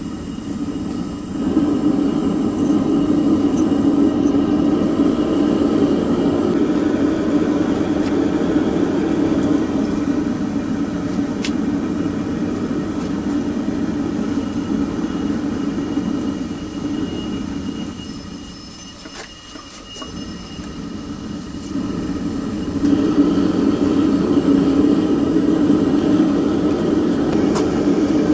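Burner-fired metal-melting furnace running with a steady rushing roar. It drops away for a few seconds about two-thirds of the way in, then comes back louder.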